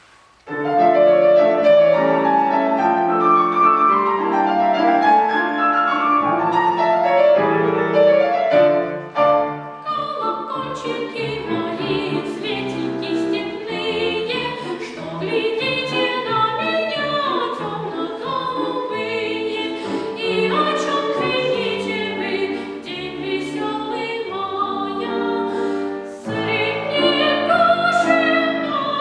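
Classical-style singing by a young singer with piano accompaniment, starting suddenly about half a second in. The piano plays chords first, and from about ten seconds in a voice with vibrato carries the melody over it.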